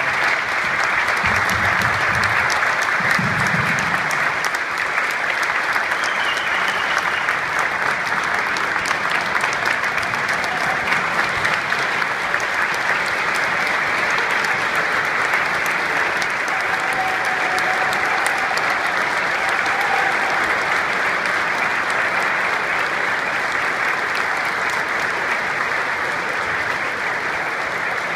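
A crowd applauding steadily: many people clapping together in a long, unbroken round of applause.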